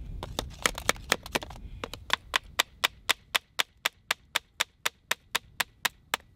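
Sharp taps on a freshly glued PVC drain-pipe joint. A few come irregularly at first, then a steady run of about four a second for some four seconds.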